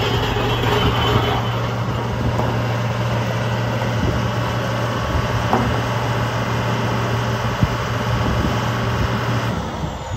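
Diesel engine of a 1994 Caterpillar CS563 vibratory smooth-drum compactor running, a steady low hum over mechanical noise. Near the end the hum drops away and the machine gets quieter.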